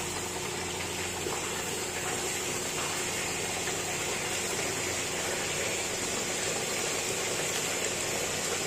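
Raw rabbit meat sizzling steadily in hot oil in a large aluminium pot as it goes in on top of browned onions and garlic.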